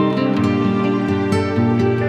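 Background music: soft instrumental music with plucked guitar-like notes.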